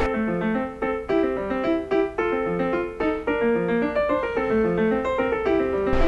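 Solo piano music playing a quick melody of many short notes.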